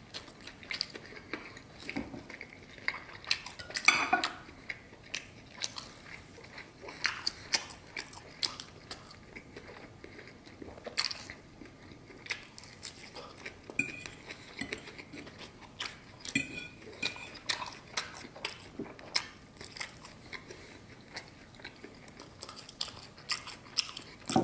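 Close-up eating sounds: chewing and crunching mouthfuls of steak and leafy salad, with a knife and fork clinking and scraping on a plate in irregular short clicks.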